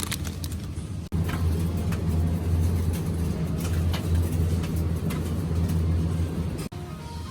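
Steady low rumble of a vehicle in motion, with scattered light clicks. It cuts off abruptly about a second in and again near the end, louder in between.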